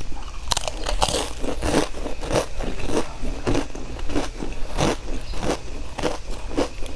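Potato chips being bitten and chewed: a steady run of dry, crisp crunches, about two or three a second.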